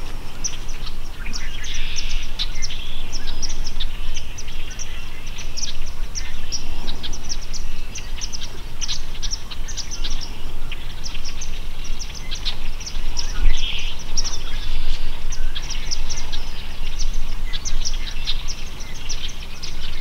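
Many small birds chirping continuously in short, high chirps over a steady low rumble.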